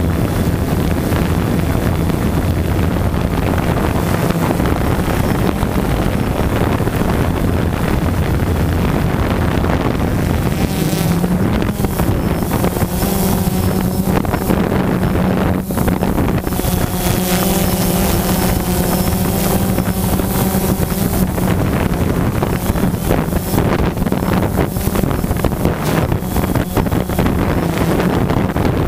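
DJI Phantom 2 quadcopter's electric motors and propellers droning steadily, heard close up through the GoPro hung beneath it, with wind buffeting the microphone. The drone's pitch rises a little about twelve seconds in as the motors speed up, and settles back lower near the end.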